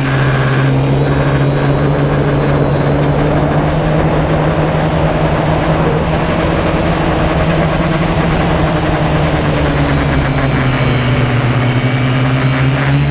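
Small multirotor camera drone's propellers and motors, heard from its own onboard camera, running with a loud steady buzzing hum as it climbs. The pitch sags slightly midway and lifts again near the end.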